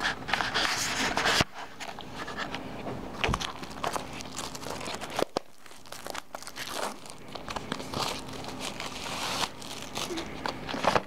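Plastic shrink wrap crinkling and tearing as it is peeled off a boxed disc set, with scattered clicks and a few knocks from handling.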